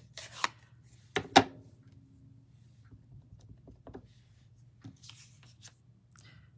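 Hard plastic clicks and taps of an acrylic stamp block on a plastic-cased ink pad as a clear stamp is inked: a sharp double click about a second in, then a few faint taps as the stamp is pressed onto card.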